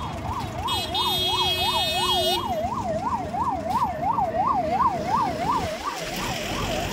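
Electronic siren wailing in a fast yelp, its pitch rising and falling about three times a second, growing fainter near the end, over a low background rumble. A brief high buzzing tone sounds about a second in.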